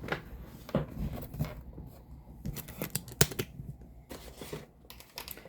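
Rustling and clicking from items and packaging being handled, with one sharp click about three seconds in.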